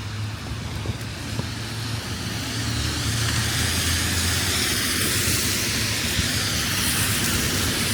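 City traffic on a rain-wet street: tyre hiss swells about two to three seconds in and then holds steady, over a low engine hum.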